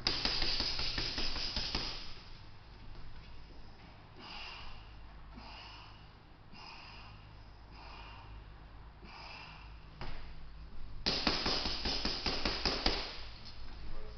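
Fast flurries of gloved punches thudding into a hanging heavy bag, once at the start and again about eleven seconds in. In between, short hard breaths about once a second as the boxer does press-ups.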